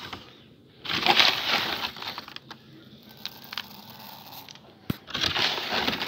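Close rustling and scraping of hands handling things right at the microphone, in two loud noisy bursts with a few sharp clicks between them.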